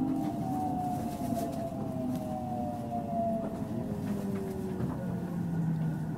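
Toshiba IGBT VVVF inverter and traction motors of a JR 313 series electric train whining in several tones that fall slowly in pitch as it brakes to a stop, over steady rumbling running noise. About five seconds in, a new higher tone starts.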